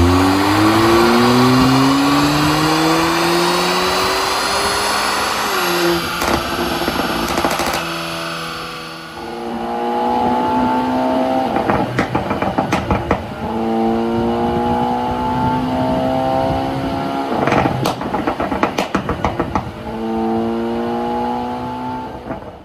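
Kia K3 GT's ECU-tuned turbocharged 1.6-litre four-cylinder with an open intake and tuned exhaust, its engine note climbing steadily for about five seconds under acceleration. On lift-off the exhaust fires rapid bursts of pops and crackles from the pop-and-bang tune, three times in all, with steadier engine running between them.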